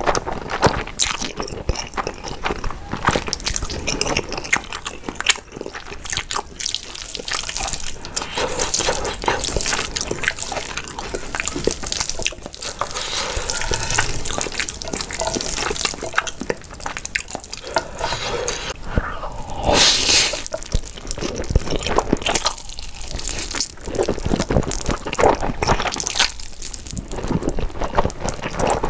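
Close-miked wet slurping and chewing of saucy, spicy stir-fried ramen noodles, with many small sticky mouth clicks.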